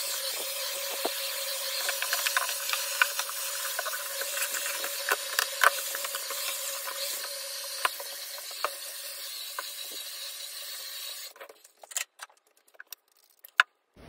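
Cordless Dyson stick vacuum running steadily, a high hiss over a steady hum, with scattered small clicks as it is worked over the desk. It switches off about eleven seconds in, followed by a few light clicks.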